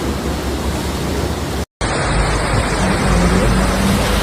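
Steady, loud rushing noise of heavy rain and water, broken off abruptly by a brief dead gap about a second and a half in. After the gap comes a car driving in the rain, a low engine hum under the steady wash of rain and road noise.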